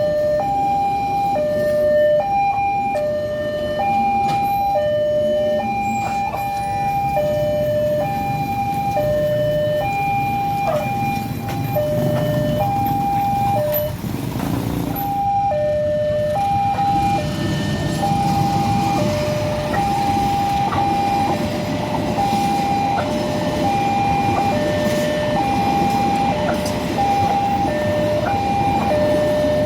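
Railway level-crossing warning alarm sounding its two-tone electronic chime, a high note and a low note taking turns about every half second but stuttering unevenly, with skipped notes and a short break about halfway through. The uploader calls it 'coughing' (batuk-batuk), a faltering crossing alarm. A steady low rumble runs underneath.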